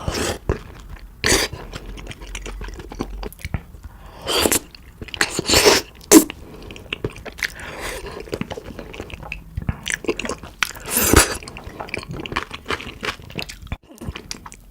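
Close-miked chewing and biting of spicy cooked beef feet, coming in irregular bursts of bites and chews, the loudest a little after the middle and again near the end.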